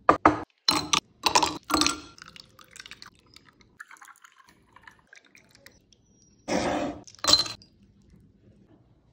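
Terracotta clay cups clinking and knocking as they are set down on a wooden board: a quick run of sharp knocks and short clatters in the first two seconds, then two more short clatters a few seconds later.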